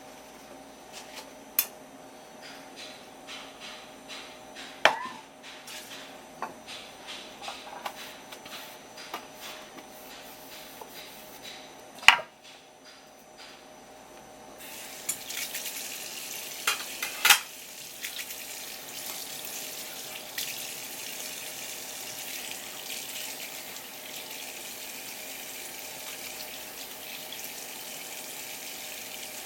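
Kitchen tap running steadily into a sink from about halfway through, most likely rinsing the salt off salted horse mackerel fillets. Before it come light scattered clicks and knocks of utensils, with one sharp knock just before the water starts.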